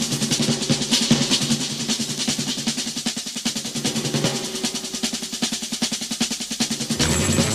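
Radio news theme music: a rapid snare drum roll over held notes, with a fuller band section and a steady bass line coming in near the end.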